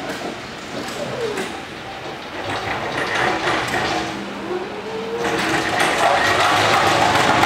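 Raymond electric pallet jack driving: its electric drive whines, gliding down and then back up in pitch as it changes speed. About five seconds in, a louder, rougher running noise joins as it picks up speed.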